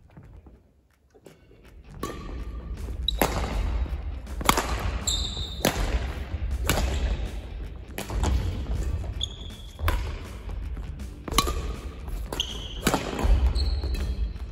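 Badminton rally: sharp racket strikes on the shuttlecock every second or so, with brief shoes squeaking on the court floor, over background music that comes in about two seconds in.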